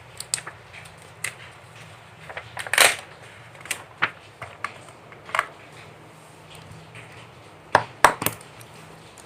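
Scattered light knocks and clicks of objects being handled, at irregular times, with a louder knock about three seconds in and a close pair near the end, over a faint steady hum.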